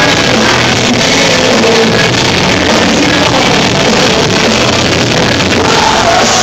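Live rock band playing loud, distorted guitars and drums, recorded on a phone from the audience so that the sound is clipped and muddy.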